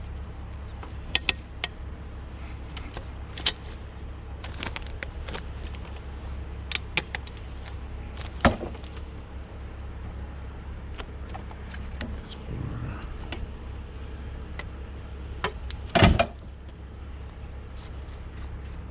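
Scrap items being handled and moved: scattered clinks and knocks, with two louder bangs about eight and a half and sixteen seconds in, over a steady low hum.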